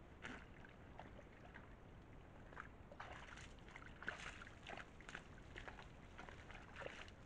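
Faint sloshing and squelching of mud and water as a rutting red deer stag gets up in its wallow and works its antlers into the mud. The splashes are irregular and come thicker from about three seconds in.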